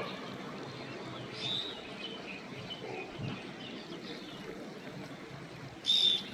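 A flock of green parrots calling from a tree: scattered sharp, high chirps over steady background noise, with a louder shriek about a second and a half in and the loudest one near the end.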